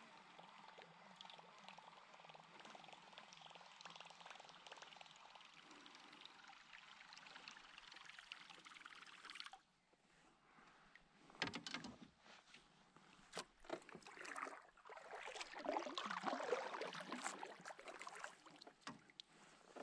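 Kayak paddle working the water: the blade dipping, water splashing and trickling off it, with a few sharp knocks, in the second half. Before that, a faint steady hiss that cuts off suddenly about halfway through.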